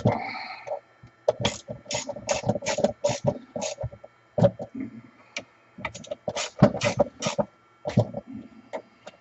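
Clicks, knocks and light rattles of the plastic and metal housing parts of a Milwaukee portable band saw being handled and fitted, with a screwdriver worked at the housing. The sound comes in an irregular run of sharp taps, and it begins with a short scrape.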